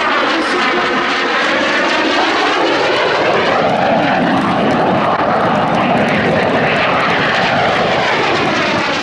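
A Red Arrows BAE Hawk T1 jet, powered by a Rolls-Royce Adour turbofan, flying past loud and close. The steady jet noise has a sweeping, phasing whoosh as the aircraft passes.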